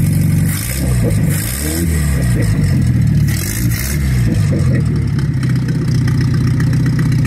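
Datsun 620 pickup's four-cylinder engine, freshly revived on a new aftermarket carburetor, revved by hand at the throttle several times, its pitch rising and falling. It settles back to a steady idle about five seconds in.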